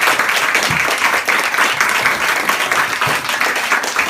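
Audience applauding steadily at the end of a live band performance.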